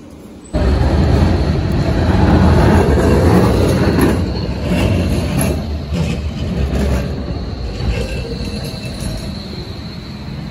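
Bombardier Flexity Berlin tram passing close by: a loud rumble of steel wheels on rail with a steady high whine, coming in suddenly about half a second in. There are several sharp clicks in the middle, and the sound slowly fades toward the end.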